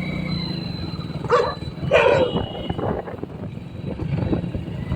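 A dog barking: two short barks about a second and a half and two seconds in, with fainter ones after, over a steady low hum.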